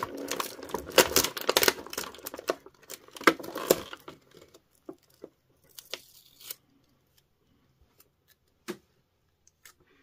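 Adhesive tape being peeled off clear plastic toy packaging, with the thin plastic crackling and crinkling in the hands. The tape held an action figure's cloth cape in place. The sound is dense for about the first four seconds, then thins to scattered crinkles and clicks.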